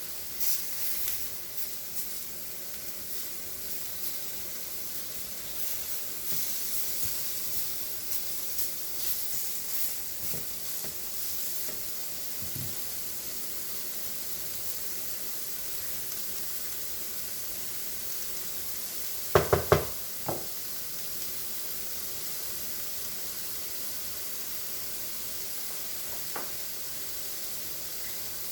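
Seasoned chicken frying in a pan with a steady sizzle and crackle, the crackle busiest in the first third. A few sharp knocks about two-thirds through, like a utensil against the pan.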